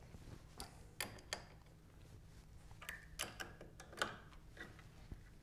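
Faint, scattered clicks and light metal taps as a cutter is tightened in a wood lathe's tool holder and the tools are handled.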